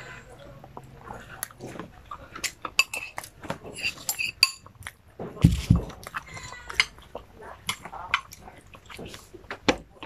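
Mealtime eating sounds: a spoon clinking against a small ceramic bowl, with chewing between. A low thump about five and a half seconds in is the loudest sound.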